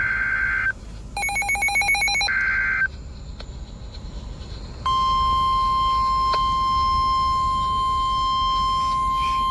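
Emergency Alert System SAME header: harsh digital data bursts that end about three quarters of a second in and come again near three seconds, with a short trilling electronic beep between them. About five seconds in, a steady single-pitched weather-radio warning alarm tone near 1050 Hz starts and holds, signalling that a warning is about to be broadcast.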